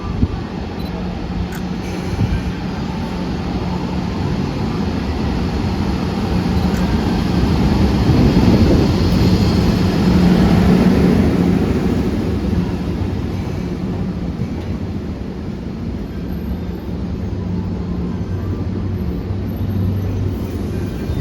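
EF64 electric locomotive hauling a train along the platform, its steady motor and blower hum mixed with rolling noise. The sound grows louder about a third of the way in, peaks, then eases as a lower hum takes over.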